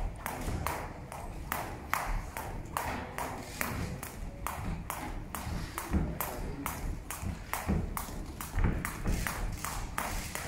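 A skipping rope slapping the canvas of a boxing ring in a steady rhythm, about three strikes a second, over light thuds of feet landing on the canvas.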